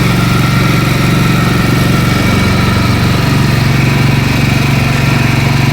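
Boat engine running steadily at an even speed, a loud constant low drone with a fine rapid pulse.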